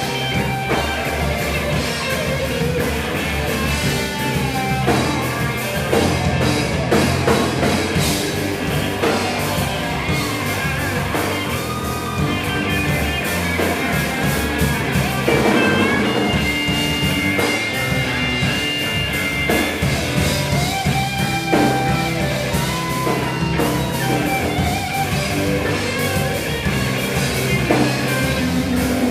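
Live band playing a slow blues: an electric guitar plays a lead line over bass and drums, with no singing.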